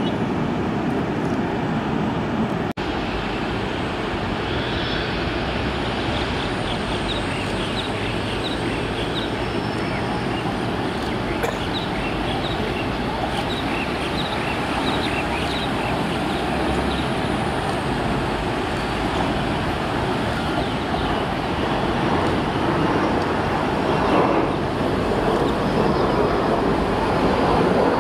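Steady roar of airport ambience: jet engines of taxiing airliners heard at a distance, with faint short high chirps through the middle stretch.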